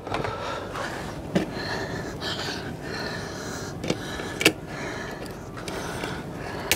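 A few short, sharp clicks of a plastic clip being worked off a water hose by hand, over a steady background hiss.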